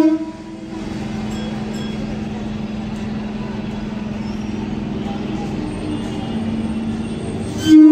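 An approaching MMTS suburban electric train: its horn ends just after the start and sounds again near the end. Between the blasts the train gives a steady low hum that rises slightly in pitch shortly before the second blast.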